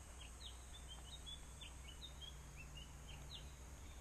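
Faint, short high chirps and whistles from small birds, several a second, over a low steady background noise.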